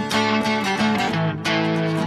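Background music led by guitar, playing a run of changing notes.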